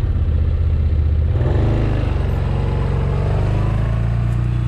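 Stels Guepard 850 quad bike's engine running near idle, then rising in speed about a second and a half in as the ATV pulls away under throttle.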